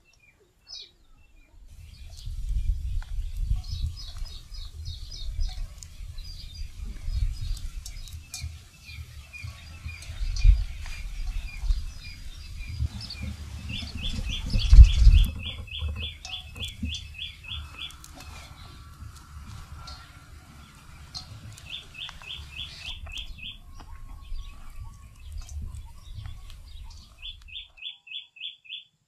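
Small birds chirping, with a trill of quick notes, about eight a second, repeated a few times: near the middle, again past two-thirds of the way through, and near the end. Underneath runs an irregular low rumble with a couple of heavier thumps, the loudest about halfway through.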